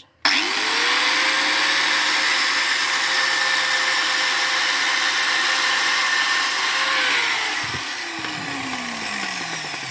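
Angle grinder spinning up and working on metal, loud and steady for about seven seconds. It is then switched off, and its motor whine falls in pitch as the disc winds down.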